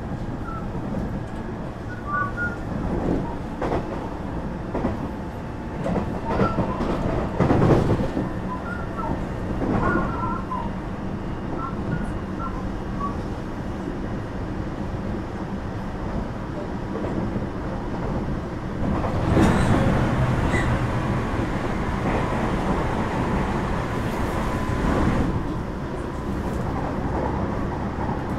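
Running noise inside a JR West 225 series 0 electric train at speed: a continuous rolling rumble with steady tones from its Toyo IGBT inverter traction gear, and irregular clacks from rail joints. There are faint high chirps from the wheels in the first half and a louder patch about 19–21 s in.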